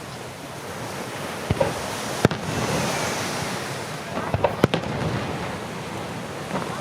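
Pirotecnia Martí display fireworks bursting: sharp single bangs, then a quick cluster of three about two-thirds through, over a steady crackling hiss.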